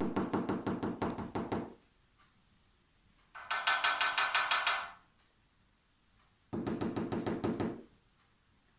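A cockatiel tapping its beak rapidly against something, in three quick runs of knocks at about seven a second, the middle run higher in pitch than the other two.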